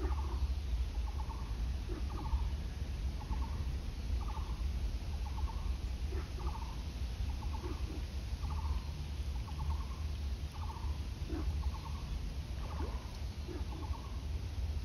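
An animal calling steadily from the surroundings: a series of short, trilled calls repeating a little more than once a second, over a low rumble.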